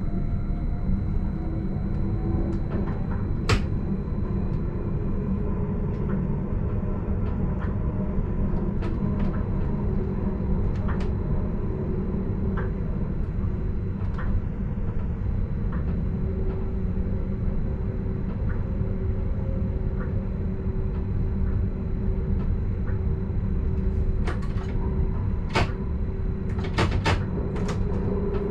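Stadler RABe 515 'Mutz' electric multiple unit running, heard from inside the driver's cab: a steady rumble of the running gear with an electric motor whine. Scattered sharp clicks and knocks from the wheels on the track come through, more of them near the end as the train enters a curve.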